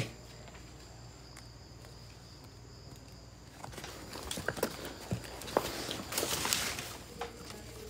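Footsteps and leaves brushing as someone pushes through leafy undergrowth, starting about halfway in as scattered crackles and rustling. Faint steady insect trilling, typical of crickets, runs underneath.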